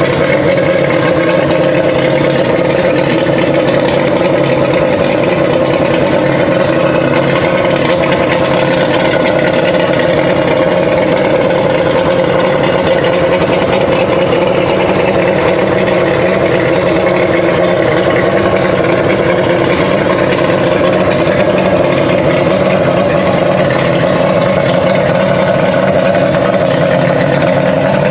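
Yamaha 150 HP HPDI outboard, a direct-injected V6 two-stroke, running steadily at idle with its cowling off.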